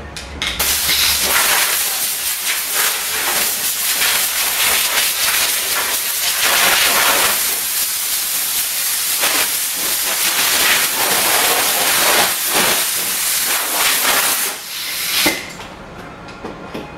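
Compressed-air blow gun hissing as sanding dust is blown off a bumper bar. The blast starts about half a second in, swells and eases as the gun is moved over the panel, and stops about two seconds before the end.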